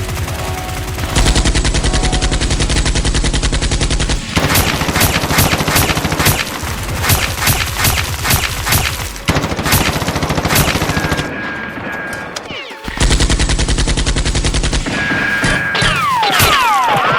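Rapid automatic gunfire, like a machine gun, in long bursts: an even, dense run of shots, then more ragged firing. There is a short lull after the middle, then another fast burst, with falling whistle-like tones near the end.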